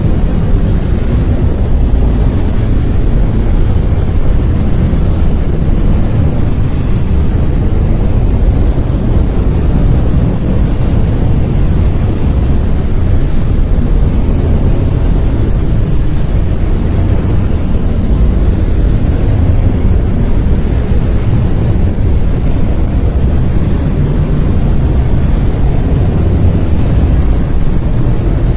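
Brown noise: a steady, deep, rumbling hiss, loudest in the low end and fading toward the highs.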